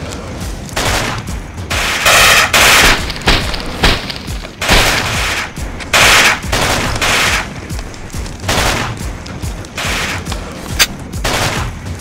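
Gunfire in a firefight: repeated bursts of automatic rifle fire, with a rapid burst of about a second two seconds in and sharper single shots between, one crack standing out near the end.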